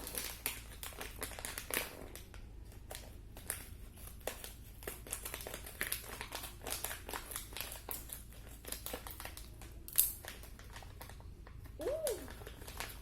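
Plastic packaging crinkling and crackling in irregular bursts as it is handled and pulled open; a brief hum of a voice near the end.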